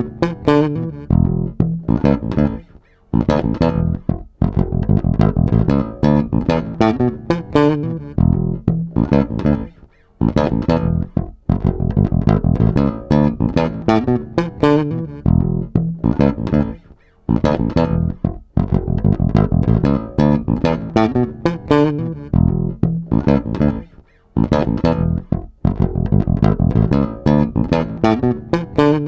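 Yamaha TRB 5 five-string electric bass on its neck pickup playing a short funk line of quick plucked notes. The line is looped on a TC Electronic Ditto pedal and repeats about every seven seconds.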